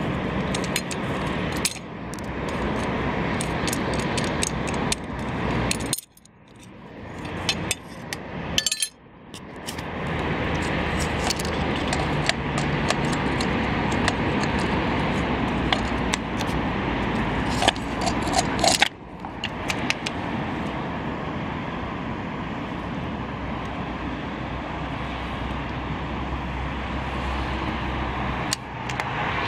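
Scattered metal clicks, clinks and knocks from handling a removed wiper motor and linkage assembly and its loose screws, over a steady rushing background noise.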